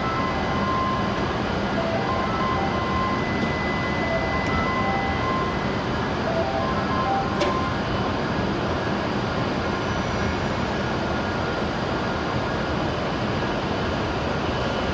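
Steady hum of a stationary E7-series shinkansen and the station around it. For the first seven seconds or so a short run of electronic chime notes plays over a steady high tone as the train doors close. About seven and a half seconds in there is a single sharp clack as the platform screen doors shut.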